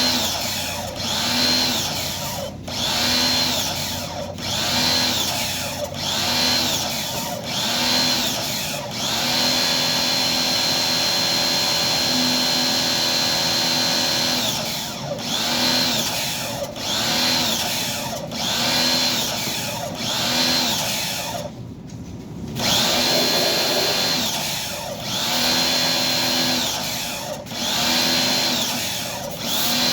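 Small electric power-tool motor repeatedly spinning up and winding down about every one and a half seconds, holding a steady run for several seconds in the middle.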